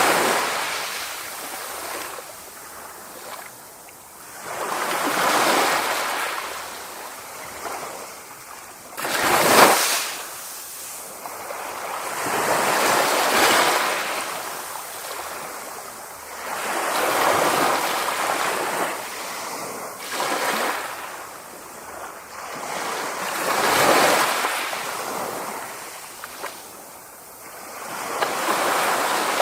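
Sea waves breaking on a shore, the surf swelling and receding every few seconds, with one sharper crash about nine seconds in.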